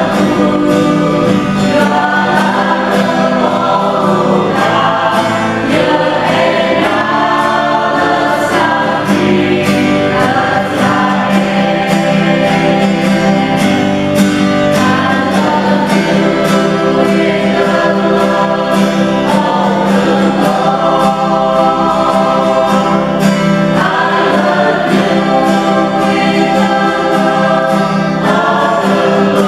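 Music: a choir singing a gospel-style hymn with instrumental accompaniment and a steady beat.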